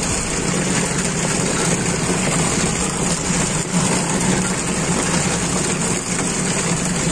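A fishing boat's engine running steadily with a constant low hum and hiss.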